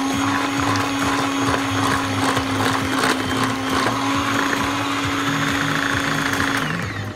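Electric hand mixer running at a steady speed, its beaters whirring through flour and beaten eggs in a glass bowl; the motor winds down and stops near the end.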